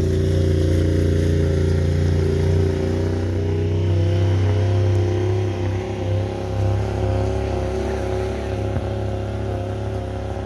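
An engine running steadily with a low, even hum that eases a little about halfway through.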